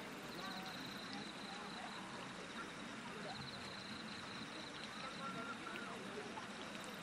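Faint murmur of a crowd of spectators talking, with no fireworks bursting. A faint high pulsing trill comes and goes in short spells.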